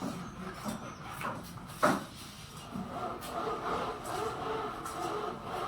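A single sharp knock about two seconds in, over faint background voices and noise.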